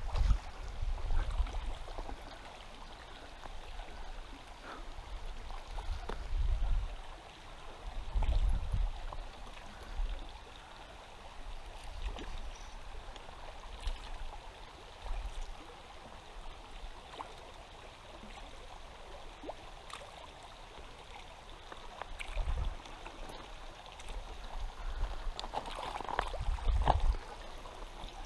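River water running over a rocky bed, a steady gurgling and trickling, with several low muffled thumps against the microphone.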